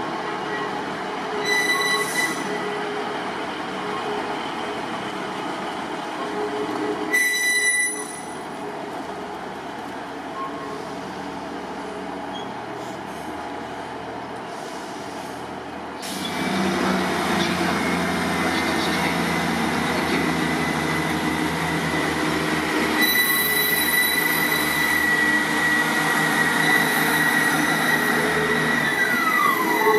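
ScotRail diesel multiple unit moving through a station, its engine running and wheels rolling. About halfway through the sound gets louder, with a steady high-pitched wheel squeal, and near the end a tone falls in pitch as the train runs past.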